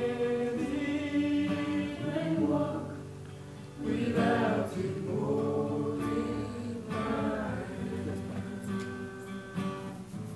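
A gospel song sung into a microphone, accompanied by a strummed acoustic guitar.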